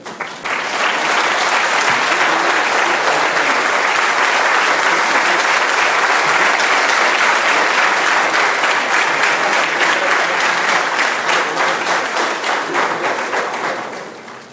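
Audience applause: many people clapping together, starting about half a second in, holding steady and dying away near the end.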